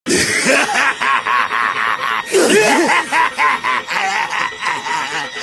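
Anime character's maniacal laugh: a man laughing in fast, repeated 'ha' pulses, about five a second, swelling louder about two seconds in.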